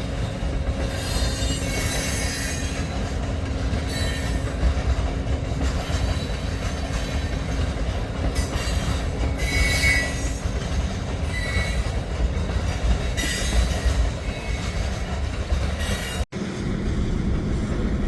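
Loaded freight cars of an Escanaba & Lake Superior train rolling past: a steady low rumble of steel wheels on the rails. Short high-pitched wheel squeals come and go several times. The sound cuts out for an instant near the end.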